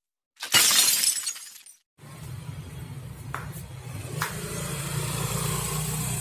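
A loud glass-shattering sound effect about half a second in, fading out by about two seconds. After a brief silence, a steady low hum of workshop background starts, with two light clicks in it.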